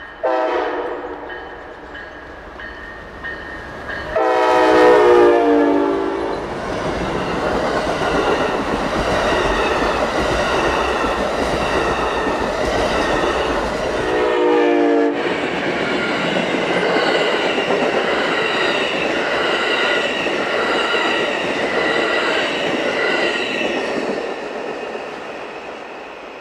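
Horn of Amtrak's Siemens ALC-42 Charger locomotive sounding three blasts as the Empire Builder passes: a short one at the start, a long loud one about four seconds in, and a short one that falls in pitch as the locomotive goes by. Under it runs the rolling noise of the train's wheels on the rails, which carries on as the passenger cars pass and fades near the end.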